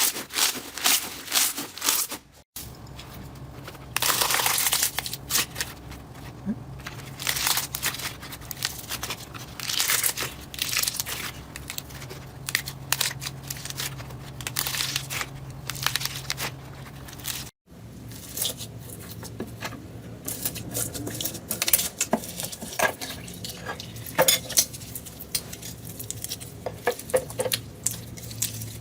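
Slime being pressed, stretched and poked by hand: a run of sticky crackles, pops and squishing clicks, in three stretches broken by short cuts about two and a half seconds in and a little past halfway.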